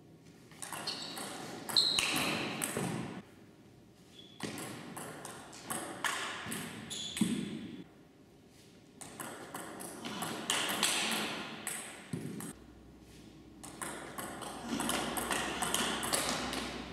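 Table tennis rallies: the celluloid-type plastic ball clicking off the rackets and the table in quick runs. There are about four separate rallies with short pauses between them.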